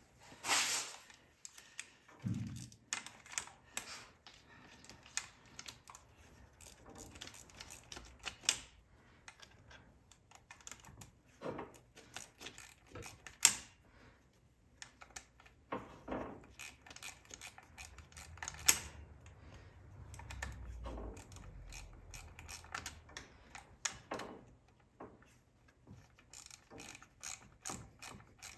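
Ratchet wrench clicking in short runs on the engine, with scattered clinks and knocks of metal tools; two sharp metallic clanks stand out in the middle.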